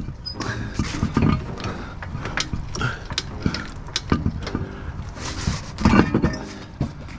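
Irregular metallic clicks and clanks of tools working on a car wheel during a tire change.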